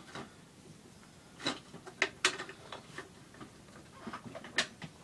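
Irregular light clicks and knocks of things being handled and moved about inside a hard plastic ammo box, with a few sharper taps among them.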